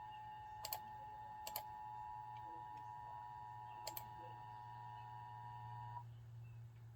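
Dead air on a radio broadcast between alert messages: a faint low hum and a faint steady high tone that cuts off about six seconds in, with a few brief clicks.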